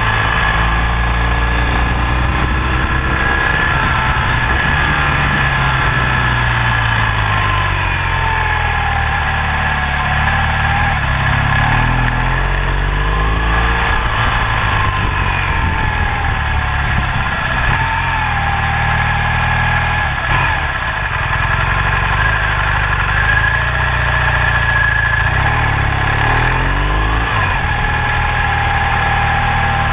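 BMW R1200GS LC motorcycle's boxer-twin engine running on the move, its pitch rising and falling again and again with throttle and gear changes, over a constant rushing noise.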